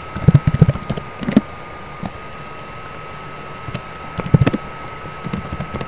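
Computer keyboard keys clicking in short bursts of typing with pauses between, over a faint steady electrical whine.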